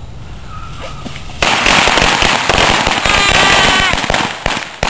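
A firework going off on the ground: about a second and a half in it bursts into a loud, dense crackling hiss of sparks, with a shrill whistle partway through, then sharp pops near the end.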